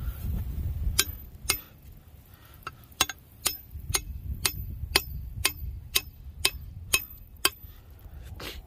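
Hammer driving a metal trap anchor down into the bank: about a dozen sharp, ringing metal-on-metal strikes, evenly about two a second, starting about a second in with a short gap after the second strike.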